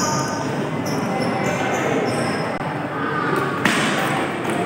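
Table tennis rally: the ball knocked back and forth off rubber paddles and bouncing on the table.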